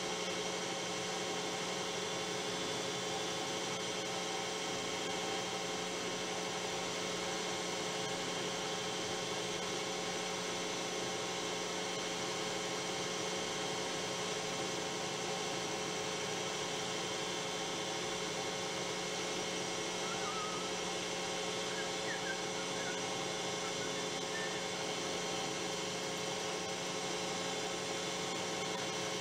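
Metal lathe running at a steady speed: an even motor and drive hum made up of several steady tones. A few faint short squeaks come about two-thirds of the way through.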